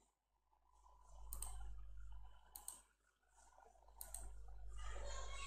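Three sharp computer mouse clicks about a second and a half apart, each bringing up the next picture on a slide, over a low electrical hum.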